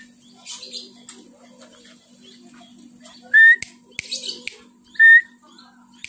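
A person whistling two short, loud notes about a second and a half apart, each rising quickly then held. There are a few breathy hisses between them, over a faint steady hum.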